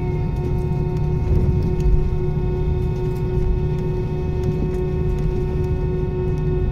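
Airbus A320's jet engines running at taxi power, heard inside the cabin: a steady low hum with several held whining tones over it, and a few faint ticks.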